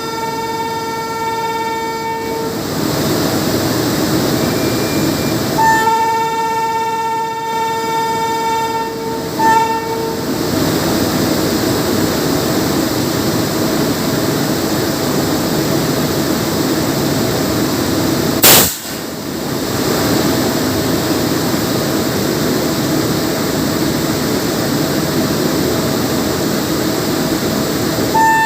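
Horn of an Indian Railways WAP-7 electric locomotive, a single steady pitch: one blast ending about two seconds in, then a long blast from about six seconds in followed at once by a short toot. After that comes the steady rumble of the moving train, with one sudden, very loud crack a little past halfway.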